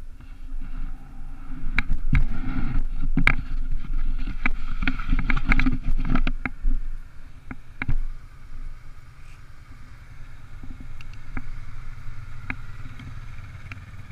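ATV engine running while riding over a gravel road, with many sharp knocks and clatters from stones and the bumpy ride, loudest through the first half. After about eight seconds it settles to a quieter, steadier engine hum with only occasional knocks.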